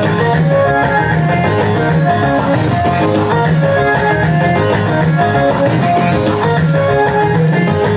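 Loud dance music with a melody of short repeating notes over a steady bass line, and cymbal-like splashes about every three seconds.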